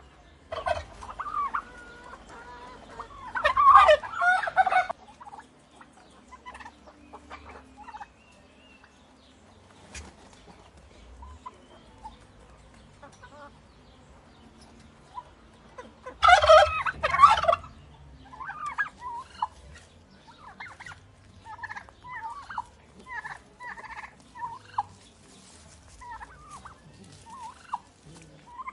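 Turkey gobbling: two loud, rapid rattling gobbles, about three and a half seconds in and again about sixteen seconds in, with short scattered calls between them and through the last ten seconds.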